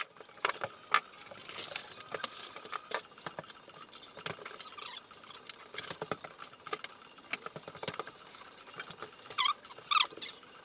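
Scattered clicks, taps and rustles of a worker handling tools, buckets and a roll of uncoupling membrane on a bathroom floor, with two short squeaks near the end.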